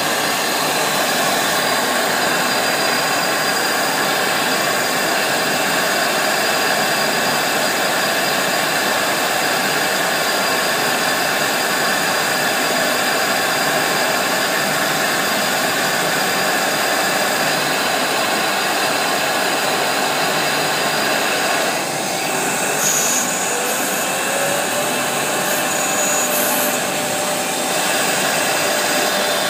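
Jingwei RC03 flatbed cutter milling a 1.5 mm acrylic sheet: a loud, steady whir from the high-speed router spindle and the vacuum hold-down blower under the table. About two-thirds in the sound dips briefly, then a tone rises and holds steady.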